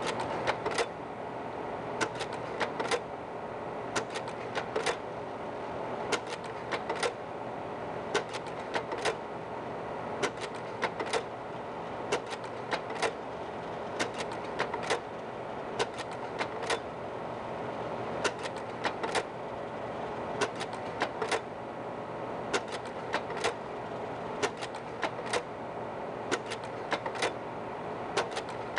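Slide projector running, its fan giving a steady hum, with small clusters of sharp mechanical clicks about every two seconds.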